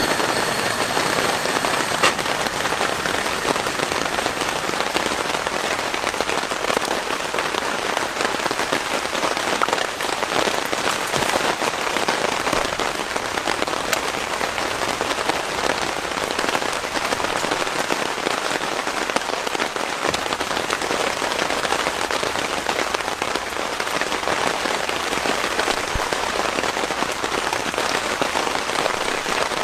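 Heavy rain falling steadily, a dense patter of countless individual drops striking a surface.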